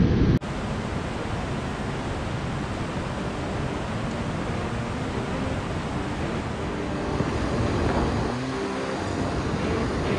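Steady rushing noise of churning tailwater below a dam spillway, mixed with wind on the microphone. A louder low rumble cuts off abruptly about half a second in.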